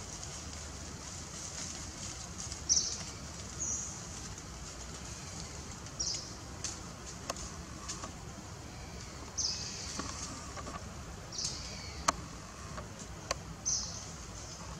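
Leaves and thin branches rustling in short bursts as macaques clamber and grapple in a tree, with a few sharp clicks.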